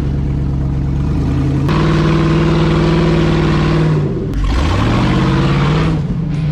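Rock buggy's engine running under throttle as it crawls up a rock ledge. It gets louder and harsher about a second and a half in, then the engine note drops briefly about four seconds in and rises again as it is revved back up.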